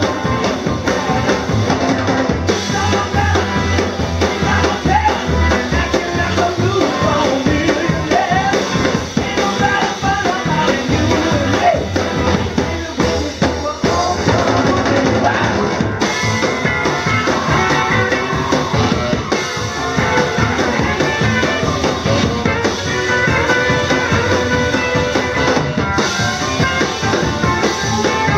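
Live rock 'n' roll band playing a fast number: saxophone lead over upright bass, keyboards and a drum kit, an early-1950s Gretsch three-ply set.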